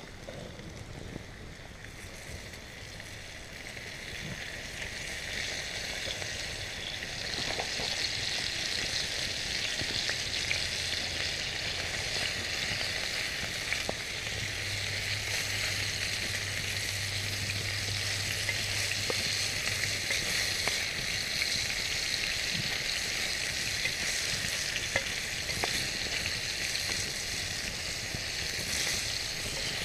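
Sausage slices sizzling in a frying pan over a campfire, being stirred and turned with a wooden spatula. The sizzle builds over the first several seconds, then holds steady, with faint scrapes and ticks.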